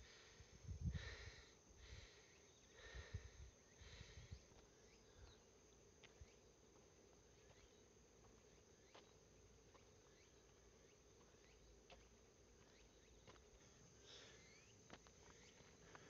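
Near silence: faint outdoor ambience, with a few soft rustles in the first few seconds.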